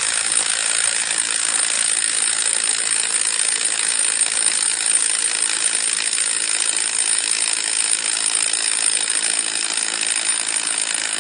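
Milwaukee M12 stubby cordless impact wrench hammering steadily in reverse, working to loosen a fastener torqued to about 340 ft-lb, without a break.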